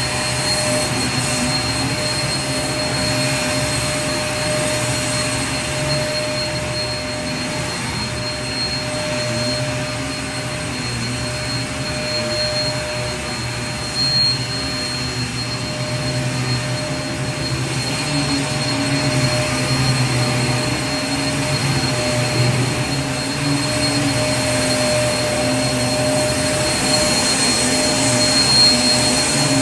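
Vacuum cleaner running steadily: a constant rush of air over a motor hum, with a thin high whine. It gets slightly louder over the second half.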